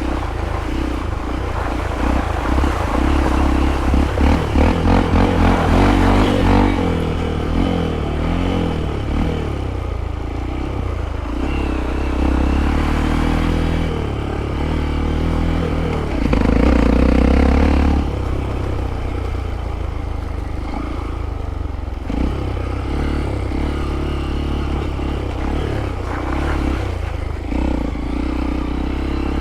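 Hero Impulse's single-cylinder engine rising and falling through the revs off-road, with clatter and scraping from the bike over rough ground. The revs swell in pulses about five seconds in and are loudest a little past the middle.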